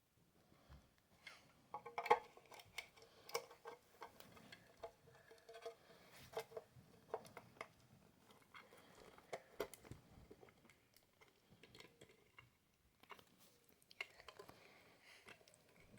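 Irregular light clicks and taps of small hard parts being handled, with a faint ring after some of them.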